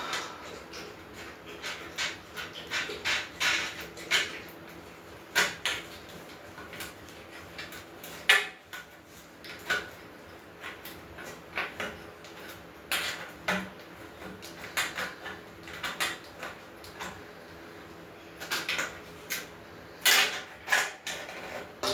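Irregular clicks, clinks and knocks of metal grill parts and hardware being handled and fitted together by hand during assembly, with the sharpest knock about eight seconds in.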